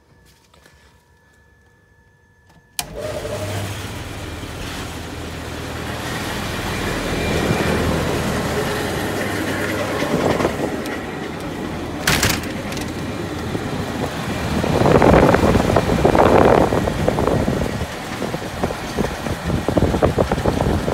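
Large greenhouse exhaust fans of a fan-and-pad cooling system running, a steady low hum under loud rushing air, which comes in abruptly about three seconds in. There is a sharp knock about twelve seconds in, and the rushing grows louder for a couple of seconds around fifteen seconds in.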